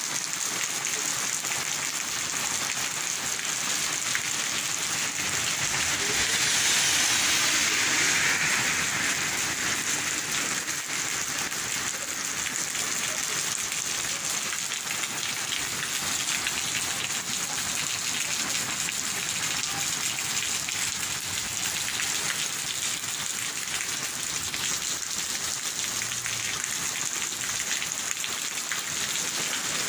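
Steady rain falling on a wet paved street and tiled sidewalk, a continuous hiss that swells louder for a few seconds about six seconds in.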